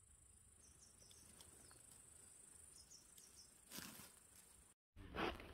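Faint rustling of dry spruce needles being brushed aside by hand, once about four seconds in and again, louder, near the end, over a steady high insect drone and a few short high chirps.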